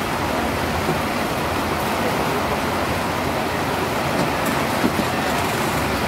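Heavy rain pouring down, a dense steady hiss with a few faint ticks about four to five seconds in.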